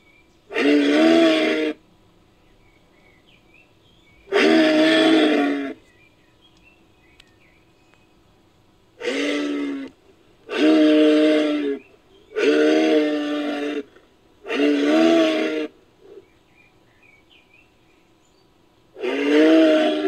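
Moose calls in a sound effect built from a moose recording: a series of hoarse, drawn-out calls about a second long each, seven in all, at uneven intervals, with faint short chirps in the pauses.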